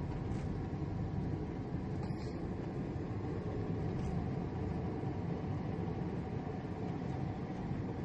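Steady road and engine rumble of a taxi driving along a road, heard from inside the cabin.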